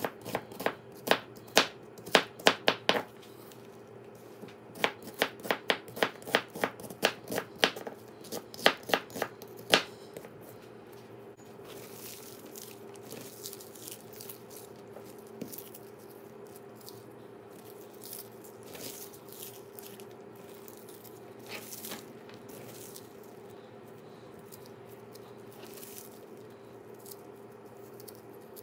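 Knife slicing onion on a cutting board, the blade knocking the board about three times a second in two runs with a short pause between. From about ten seconds in, softer rustling and light clicks as a gloved hand spreads and tosses the sliced onion.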